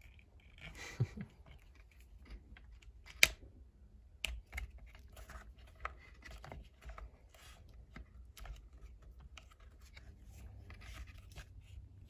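Faint scraping and clicking of a screwdriver working inside a rubber spark plug boot to pry out its contact spring, with one sharp click about three seconds in.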